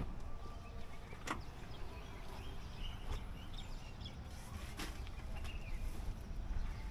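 An SUV's rear hatch being opened and a bag loaded into the boot: a few scattered sharp clicks and knocks over a low steady background rumble, with faint bird chirps a few seconds in.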